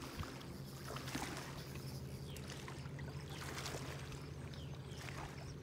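Steady low drone of a motor running at a constant pitch, with faint scattered ticks over it.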